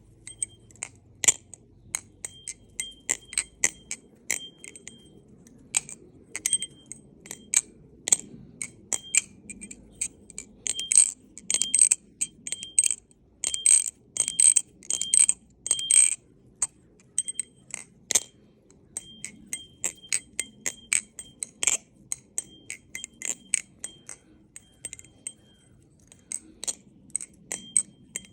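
Squid Industries Krake-Raken balisong with Tyflipz channel handles being flipped: the handles clack together in quick, irregular runs, each hit followed by a bright metallic ring. The runs are busiest from about eleven to sixteen seconds in.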